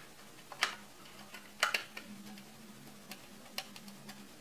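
Light plastic clicks and taps from a hinged plastic paint-set case being handled and its clear lid opened: about half a dozen separate clicks at irregular intervals, with a quick double click about a second and a half in.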